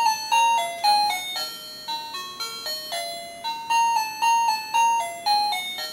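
TeckNet wireless doorbell receiver playing one of its 32 electronic ringtone melodies: a quick tune of clean beeping notes, a few to the second.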